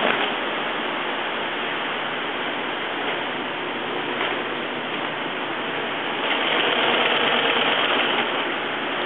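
Industrial sewing machine running as it stitches heavy sailcloth for a mainsail repair: a steady mechanical whirr that grows louder for about two seconds near the end.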